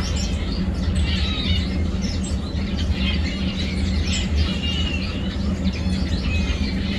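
Many small caged finches chirping, with short high chirps scattered throughout, over a steady low hum.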